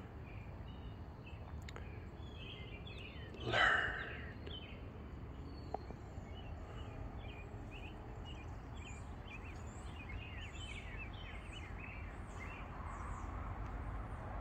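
Backyard birds chirping and singing in the trees: many short calls, repeated throughout, over a steady low background rumble. One louder, longer sound comes about three and a half seconds in.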